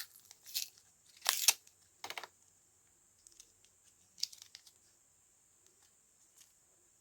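Product packaging being handled and torn open: a few short rustling, tearing sounds, the loudest about a second and a half in, then little but faint hiss.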